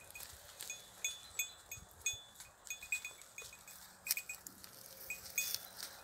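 Small metal bells on browsing goats clinking irregularly, several short rings a second, with crackling of dry brush as the goats push through it.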